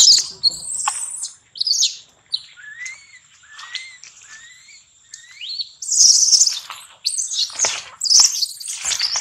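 Baby macaque squealing in shrill, high-pitched cries, with softer short rising whimpers in the middle and a fresh run of loud squeals from about six seconds in.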